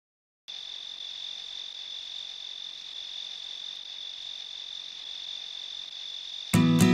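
Crickets trilling in one steady, high, unbroken tone, starting after about half a second of silence. Just before the end, a strummed acoustic guitar cuts in suddenly.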